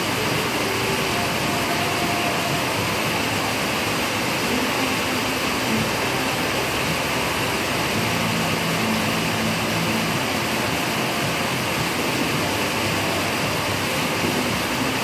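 Heavy rain pouring down, a steady, even hiss that does not let up.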